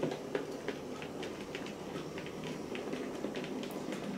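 OO gauge model steam locomotive, a Hattons Andrew Barclay 0-4-0 saddle tank, running with a few wagons in tow: a steady motor hum with irregular light clicks of wheels over the rail joints.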